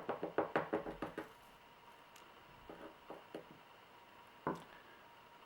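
Rapid, even light knocks, about six a second, from the small bottle of Q-Bond black filler powder being tapped to shake the powder out. They stop a little over a second in, then come a few softer taps and one sharper knock near the end.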